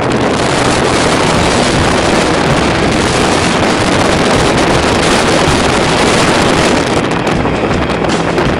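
Strong wind blasting across the microphone over the rush of sea water, as a sailboat drives through rough, whitecapped waves. A loud, steady roar that eases a little near the end.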